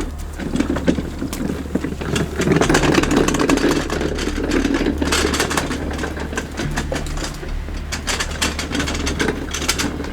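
Brush and scrap-wood fire burning hard, crackling and popping in rapid sharp snaps over a steady low rumble, louder for a few seconds about two seconds in.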